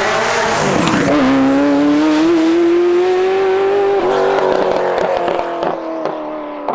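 Ferrari F40's twin-turbo V8 accelerating hard as the car approaches. The engine note climbs, drops sharply about a second in as it shifts up, then climbs again. In the last few seconds the note eases off with sharp crackles.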